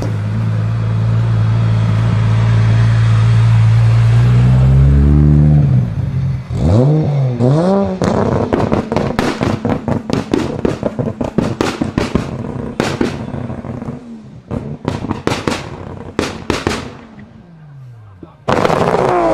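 A performance car's engine held at a steady high rev for about five seconds, then blipped up and down a few times. A long run of sharp exhaust pops and bangs follows as the revs drop and rise. Near the end a loud engine comes in again, its pitch falling.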